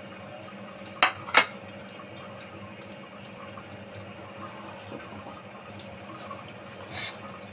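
Two sharp clinks of steel kitchenware against the kadhai about a second in, over a steady low hum; a few lighter knocks near the end as the spatula is taken up.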